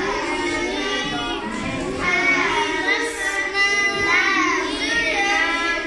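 Children chanting Quran recitation aloud in a sung, melodic style, with long held notes.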